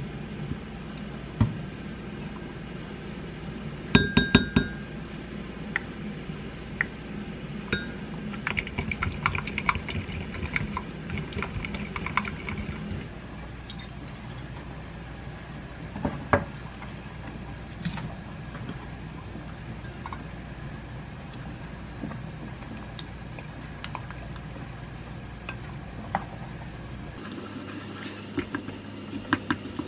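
Wooden spoon clinking and scraping against a glass mug while mixing a sauce: a few ringing clinks about four seconds in, then a run of quick scraping clicks for several seconds. Later come a few scattered light knocks.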